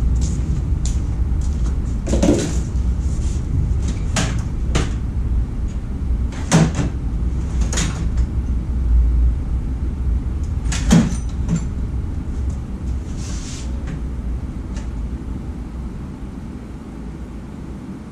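Workshop drawers being opened and shut and tools knocking about while someone rummages for a pick: about eight separate knocks and clicks, most in the first two-thirds, over a steady low hum that fades a little near the end.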